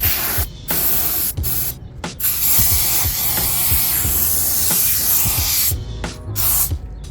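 Aerosol can of Fix-A-Flat tire sealant spraying: a few short hissing bursts, then one long spray of about three and a half seconds, then two more short bursts near the end.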